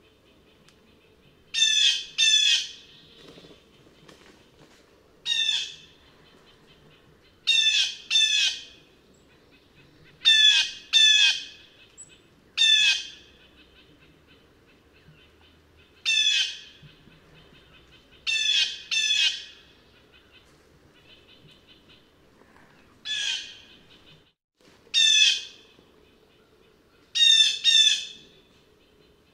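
Blue jay giving loud, harsh jay calls, about fifteen in all, many in quick pairs, repeated every two to three seconds.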